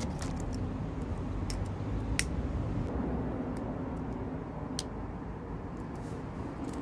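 A handheld disposable lighter being clicked to light a tealight: a few short sharp clicks, the loudest about two seconds in, over a steady low rumble.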